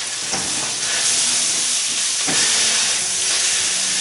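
Onions, leeks, mushrooms and red pepper sizzling steadily in hot groundnut oil in a wok, with a couple of light knocks.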